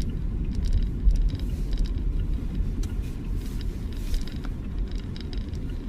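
Steady low road rumble inside a moving car on a rough, potholed street, with scattered knocks and jolts as the car goes over the bumps, the loudest about a second in.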